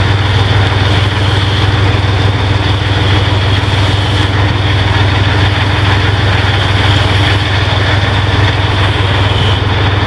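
Fire truck's heavy engine idling close by: a loud, steady drone with a low hum.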